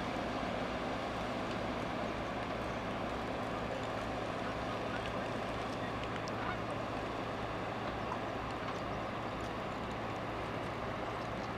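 Steady drone of a tanker ship's engines and machinery, a constant low hum under an even wash of noise.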